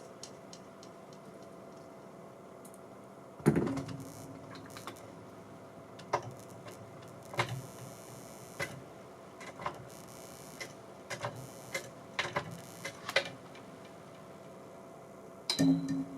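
Irregular clicks and pops from an audio mixer over a faint steady hum. A loud click about three and a half seconds in is followed by a brief low tone, scattered clicks follow, and a low steady tone starts near the end.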